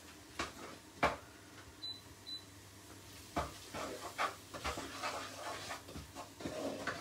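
A wooden spoon stirring and scraping spice paste around a non-stick pot, knocking against the pan. There is a sharp knock about a second in and a dense run of scraping and knocking in the second half. Two short high beeps come near two seconds in.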